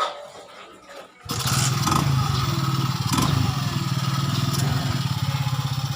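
A motorcycle engine running at a steady idle, with an even, fast pulse. It comes in abruptly about a second in.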